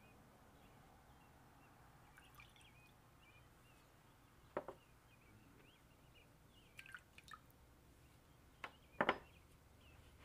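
Vinegar poured into a glass bowl of olive oil: a few short splashes and drips, the loudest pair about nine seconds in.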